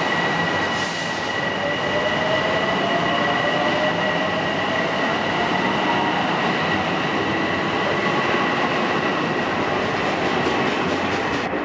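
A Long Island Rail Road M7 electric multiple-unit train running past the platform: a steady rumble of wheels on rails, with a high steady whine and a fainter tone that slowly rises in pitch.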